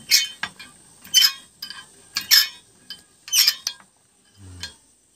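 Hand-cranked rubber sheeting rollers pressing a wet sheet of coagulated natural rubber. There are four short, sharp bursts of clatter, about a second apart, as the rollers turn.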